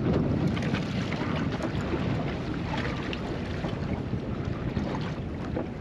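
Wind buffeting the microphone on open sea, with choppy water lapping against the small boat's hull.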